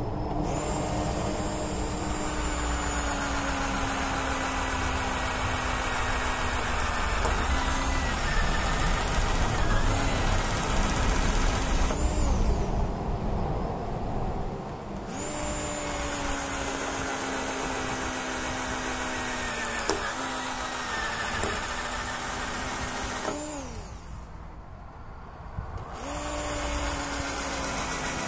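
Corded electric drill boring holes through the rubber sidewall of a tyre, its motor running under load with its pitch sagging slightly through each run. It spins down and stops twice, about halfway through and again near the end, then starts up again.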